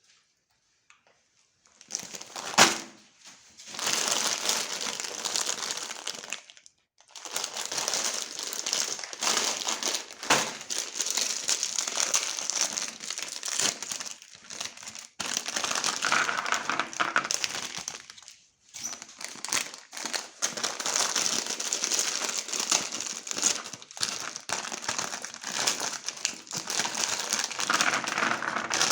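Dry crinkling and crunching of cookies and their packaging being handled and broken. It starts with one sharp crack and then runs on in irregular stretches with short pauses.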